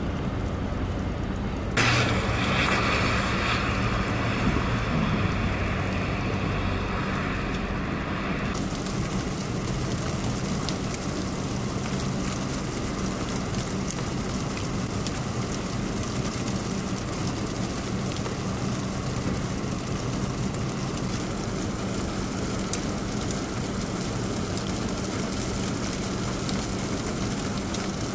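Sleet falling: a steady hiss dotted with many fine ticks of ice pellets striking surfaces, over a low steady hum. The sound changes abruptly about two seconds in and again about eight seconds in.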